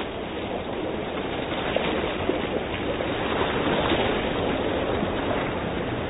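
Surf breaking and washing over rocks: a steady rushing noise that swells a little about two seconds in.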